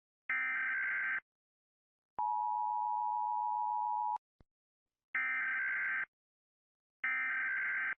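Emergency Alert System tones: a data-burst screech, then the two-tone attention signal held for about two seconds and cut off sharply, a faint click, then two more data bursts about a second apart.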